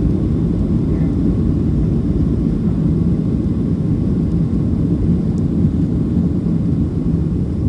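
Steady, loud low rumble of a Boeing 737-700's CFM56-7B turbofan engines and airflow, heard from inside the passenger cabin.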